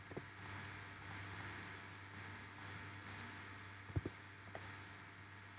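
Faint, scattered computer keyboard and mouse clicks while text is being edited, about a dozen in all, with a heavier thump about four seconds in, over a low steady hum.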